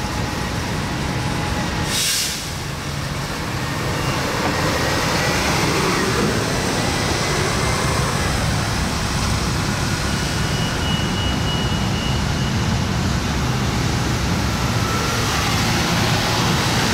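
Gillig BRT city bus running, its engine rumbling steadily with tyre noise on wet pavement, growing a little louder after a few seconds. A short sharp hiss of air, typical of the bus's air brakes, comes about two seconds in.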